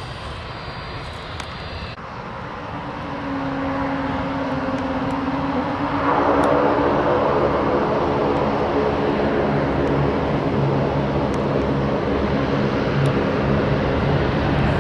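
Twin turbofan engines of an Air New Zealand Airbus A320-family jet spooling up for takeoff. The low whine climbs, then about six seconds in the engines jump to a loud, steady takeoff-thrust roar. For the first two seconds a landed Virgin Australia Boeing 737 is heard on its runway roll-out.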